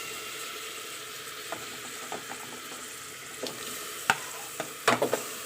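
Chicken pieces frying with chopped onions in oil in a pressure cooker, sizzling steadily. A spatula stirs and scrapes them, knocking against the pot several times, most sharply in the last second.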